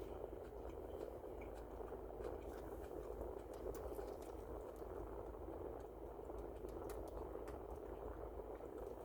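Steady background hum, with faint scattered clicks of a person chewing food.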